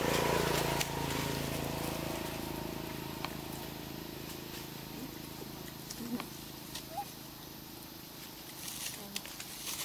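Outdoor ambience: a low steady hum that fades away over the first few seconds, a few faint ticks and rustles, and three short faint squeaks in the second half.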